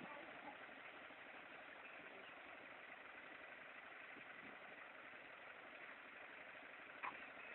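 Faint, steady idling of the tow truck's engine, with a single short click about seven seconds in.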